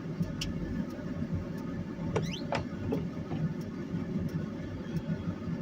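Vehicle cabin noise as it creeps slowly over an icy, snow-covered road: a steady low rumble with scattered faint clicks and a short rising squeak about two seconds in.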